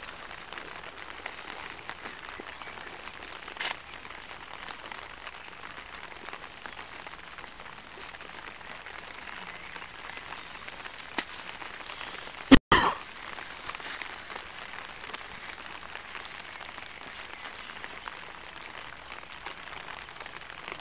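Light rain pattering steadily, with a few faint clicks and one sharp, loud knock a little past the middle.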